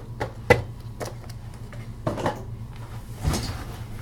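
A handful of separate clicks and knocks, with a heavier thud a little over three seconds in, over a steady low hum.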